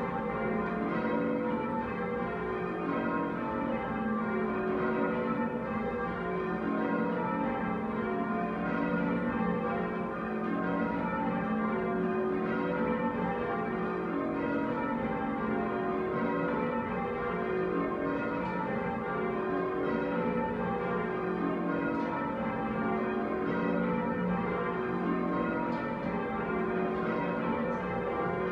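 Church tower bells being change-rung by ringers pulling ropes, the bells striking one after another in continuous rows, each run stepping down in pitch from the highest bell to the lowest. Heard from the ringing chamber at the foot of the tower.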